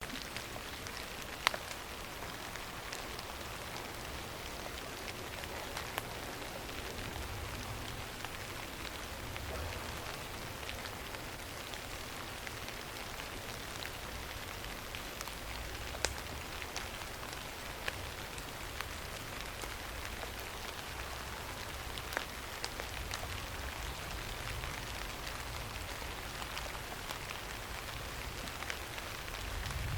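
Steady winter rain falling in an oak forest, an even hiss with scattered louder drips ticking down at irregular moments.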